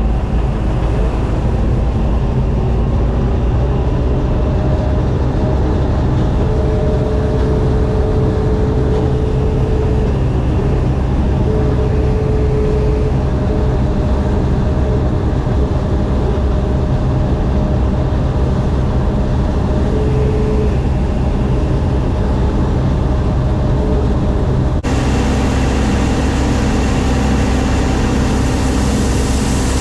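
Heavy diesel farm machinery engine running steadily under load, a constant low hum; the sound changes abruptly about 25 seconds in and carries on just as steady.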